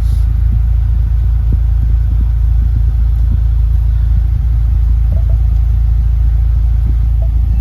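Steady low rumble inside a 2018 Ford Mustang's cabin, the engine idling with the climate control running.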